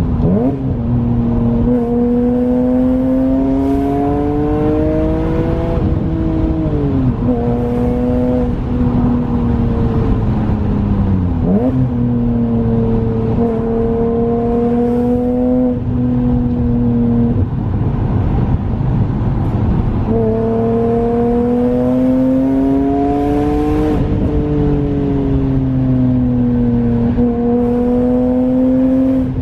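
BMW E46 M3's S54 straight-six engine pulling under load. Its pitch climbs steadily, falls sharply about six and eleven seconds in, then climbs again.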